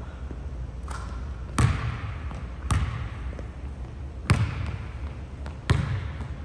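A basketball bouncing on a hardwood gym floor. A faint knock comes about a second in, then four loud, sharp bounces at uneven gaps of one to one and a half seconds, each ringing out in the hall's echo.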